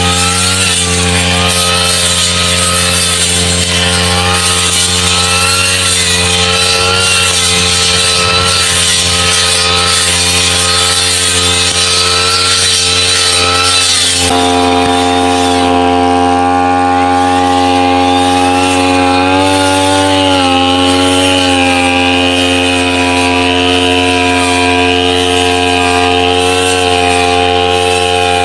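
Backpack brush cutter engine running at high speed as its shaft-mounted head cuts through wet grass, the pitch wavering slightly under load. About halfway through the engine note shifts and then holds steady.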